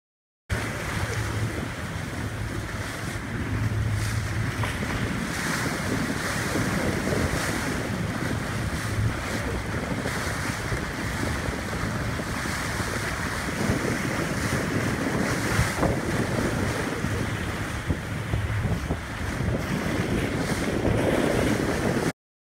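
Wind buffeting the microphone over water washing around a fishing boat at sea, with a low hum from the boat's engine. The sound starts abruptly and cuts off abruptly near the end.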